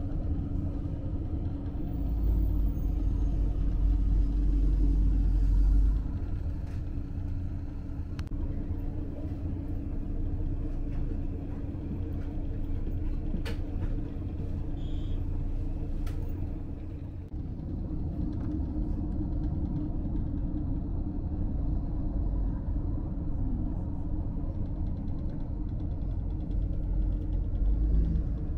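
Steady low rumble and drone of a KiHa 54 diesel railcar heard from inside the passenger cabin, its engine running as the train runs, louder for a few seconds near the start.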